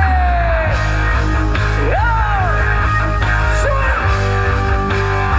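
Music with heavy bass played loud through a rot hae sound-truck speaker system, with a lead line that slides up and down in pitch over it.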